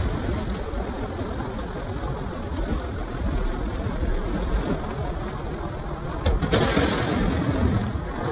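A heavy engine running steadily with a low rumble. About six seconds in, a knock is followed by a louder rushing noise lasting about a second.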